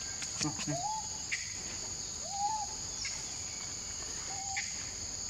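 Steady high-pitched drone of forest insects, with four short rising-and-falling calls from an unseen animal spread through it.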